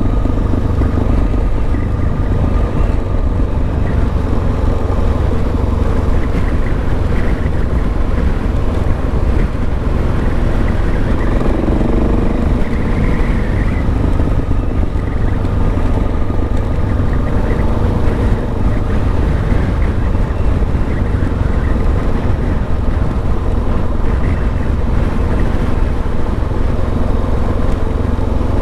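Suzuki DRZ400S's single-cylinder four-stroke engine running steadily under way, with heavy wind rumble on the microphone.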